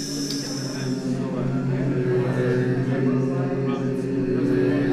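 Synthesized, slowed-down voice sound from a motion-tracked text-reading sound installation: a low, droning, chant-like hum of several held tones with slowly shifting vowel-like colour. It gets louder about a second in.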